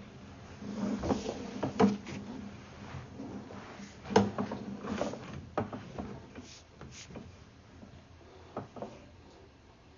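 Irregular knocks and clunks, as of objects being handled and set down, loudest in the first half and thinning out after about six seconds.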